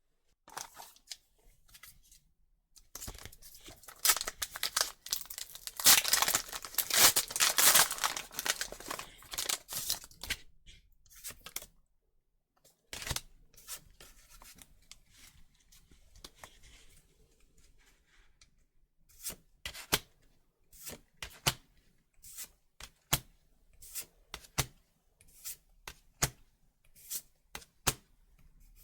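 A foil Pokémon booster pack wrapper torn open and crinkled for several seconds, then a string of short, sharp card clicks, about one a second, as the cards are flicked through one by one.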